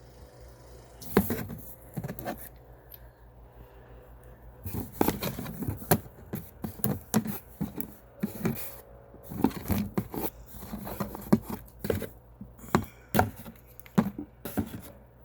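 Small essential-oil bottles and their packaging being handled and set down, a run of short clicks and knocks that come thicker from about five seconds in.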